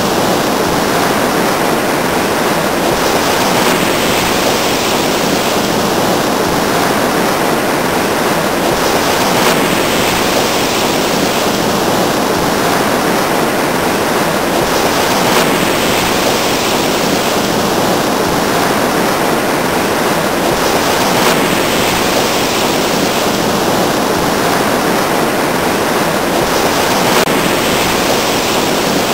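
Steady, unbroken rushing of water.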